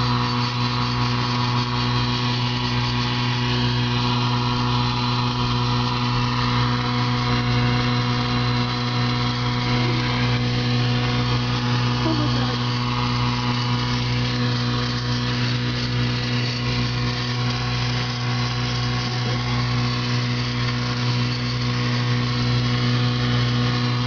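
Steady mechanical hum of a car heard from inside the cabin, with a low regular pulsing a little faster than once a second underneath.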